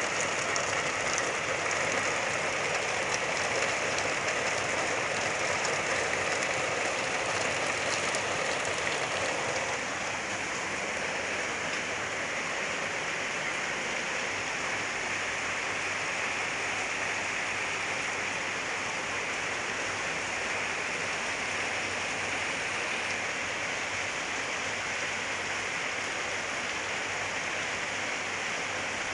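Heavy rain pouring down in a storm: a steady, dense hiss of downpour, easing slightly about ten seconds in.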